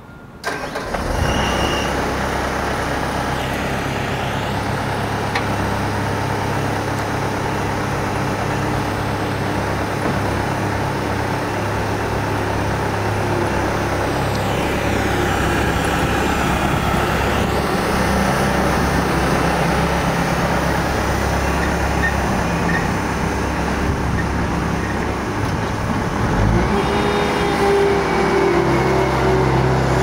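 Bobcat S300 skid steer's turbo diesel engine starting about half a second in, then running steadily. Near the end the engine note changes and a higher steady whine comes in as the loader drives off.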